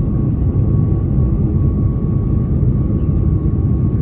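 Airliner cabin noise during descent: a loud, steady low rumble of jet engines and airflow, with a faint steady whine.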